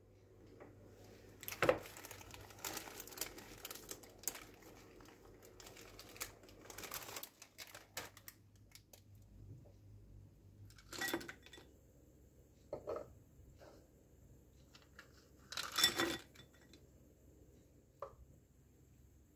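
Baking paper crinkling and dried beans rattling as the pie weights are handled in a tart shell for a few seconds. Then a few separate knocks and clinks of kitchenware being set down on the counter, one of them a glass bowl.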